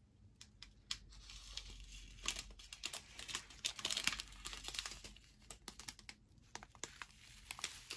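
Strip of small clear plastic bags of diamond painting drills crinkling as it is handled, a dense run of crackles and clicks, busiest in the middle.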